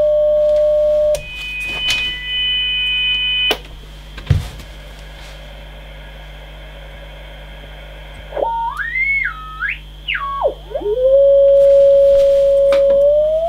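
A single whistle-like beat tone from a radio receiver picking up a single-sideband transmission. Its pitch slides up and down as the transmitter is tuned, then holds steady and climbs in small steps near the end.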